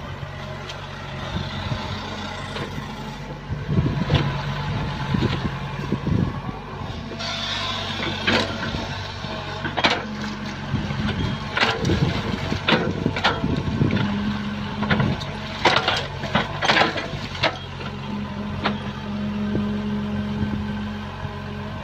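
A Sumitomo excavator's diesel engine runs steadily and rises in pitch at times as the hydraulics take load. Repeated sharp clanks and rattles come from the steel bucket digging and scraping through stones and mud, thickest in the middle of the stretch.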